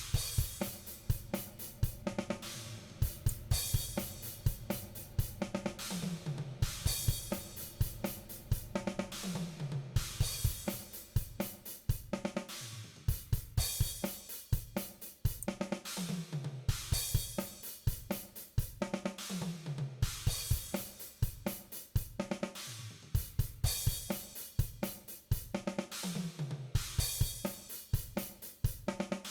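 DrumGizmo virtual acoustic drum kit playing back a groove of kick, snare, hi-hat and cymbals that repeats every few seconds. It is heard through a short room reverb (Dragonfly Room) that is being tuned.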